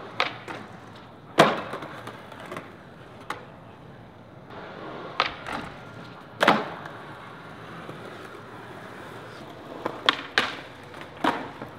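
Skateboard wheels rolling on concrete, broken by about eight sharp clacks of the board popping, striking a brick ledge and landing; the loudest clack comes about a second and a half in.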